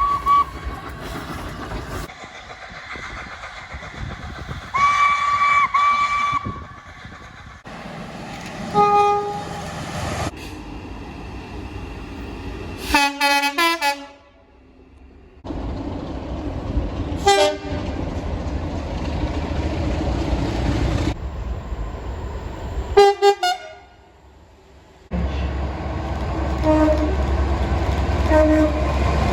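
A string of short clips of trains sounding their horns, cut one after another: a couple of longer horn blasts, single short toots and a quick run of short staccato blasts, with the rumble of trains running between them.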